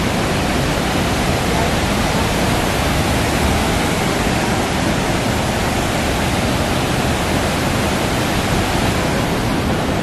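Great Falls of the Passaic River: a steady rush of water pouring down into the gorge.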